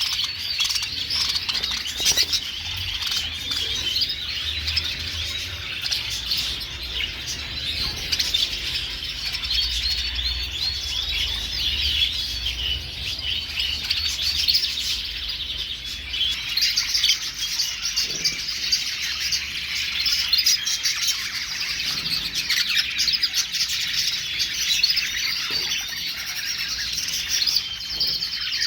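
A flock of English budgerigars chattering together: a dense, continuous warbling twitter of many overlapping voices.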